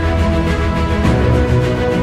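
Background music with a steady bass line.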